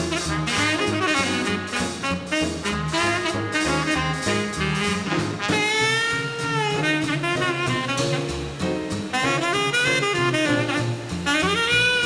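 Small-group swing jazz played live: saxophone and trumpet leading over piano and upright bass, with a steady beat. A held horn note bends in pitch about six seconds in.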